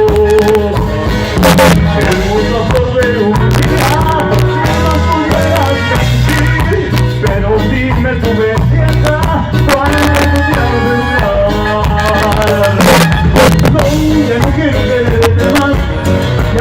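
Live band music: an instrumental stretch of a dance song, with a stepping bass line, drums and melody instruments and no words.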